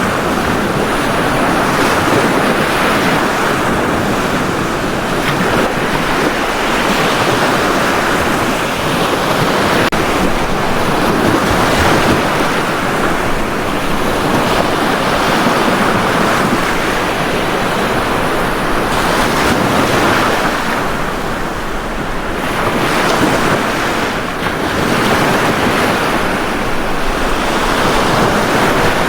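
Ocean waves breaking and washing on a beach, a continuous surf noise that swells and eases every few seconds, with some wind on the microphone.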